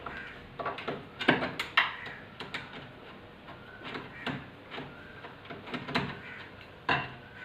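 Phillips screwdriver unscrewing a doorknob's mounting screws: irregular small clicks and scrapes as the screws are turned out.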